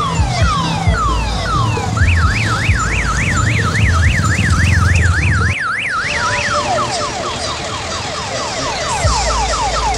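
Electronic siren sound effect from a Tayo-bus odong-odong ride, cycling through its patterns: quick falling sweeps, then about two seconds in a fast up-and-down yelp of about three cycles a second, then falling sweeps again from about seven seconds. A low thumping runs underneath, drops out a little past halfway and comes back near the end.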